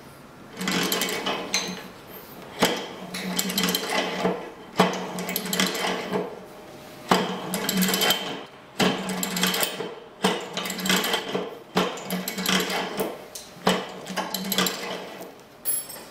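Hand-cranked single-punch tablet press running, its flywheel and punch mechanism clattering with a steady hum. A sharp clack comes roughly every two seconds as the machine cycles.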